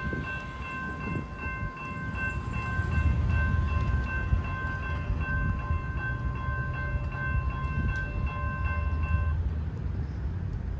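CSX freight locomotives passing with a deep diesel rumble that grows louder a few seconds in. Over it, a steady multi-pitched warning tone pulses evenly and cuts off about nine seconds in.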